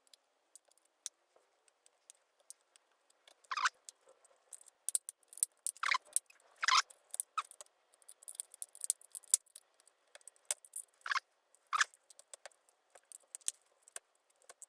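Scattered small clicks and scraping as a thin metal pick works around the edge of a first-generation iPad's screen, prying the screen's latches loose from the case, with a few sharper snaps along the way.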